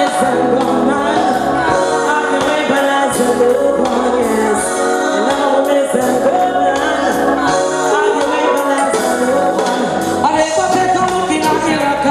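Reggae backing track played loud over a sound system, with a singing voice carrying a melody over it.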